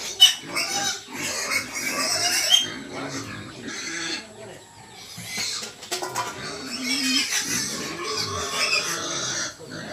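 Young pigs squealing and grunting in repeated bursts as they are fed.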